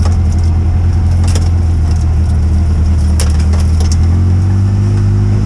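A vehicle's engine running steadily while driving over a rough path, with a few sharp knocks and rattles from the bumps. The engine note rises a little near the end.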